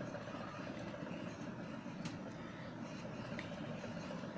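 Faint scratching of a coloured pencil writing on paper, with a few light ticks, over a steady low background hum.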